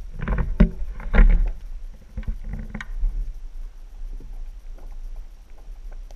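Muffled knocks and water sloshing picked up by a GoPro in its waterproof housing underwater, with a run of low thumps and clicks in the first three seconds and lighter scattered ticks after.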